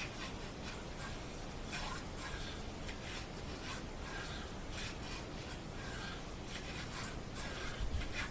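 Hand block plane taking repeated strokes along wood, about one a second, shaving a maple plug in a mandolin neck flat to match the fingerboard surface.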